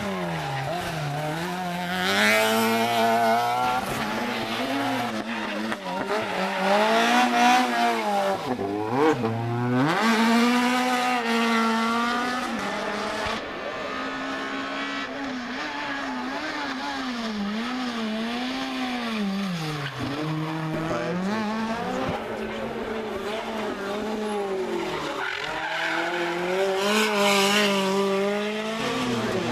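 Rally car engines running hard along a stage, revving up and dropping again and again as the cars accelerate, brake and change gear.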